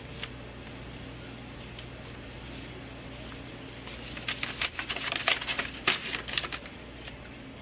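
Loose sheets of paper rustling and crinkling as a cat paws and bats at them on a fax machine's tray: a quick run of scratchy rustles starting a little past halfway and lasting about two and a half seconds.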